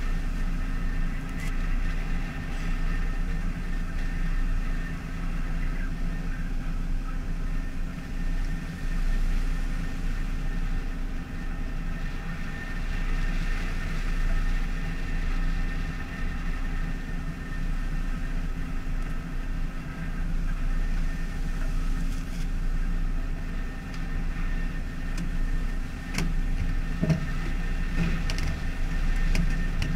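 Steady drone of a pole-and-line fishing boat's engine, with a constant machinery hum over it. A few sharp knocks come near the end.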